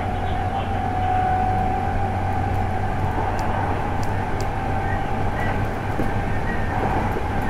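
Cabin running noise of a Hankyu 8300 series electric train with a Toyo late-type GTO VVVF inverter, travelling between stations: a steady rumble of wheels on rail with a whine held at one pitch.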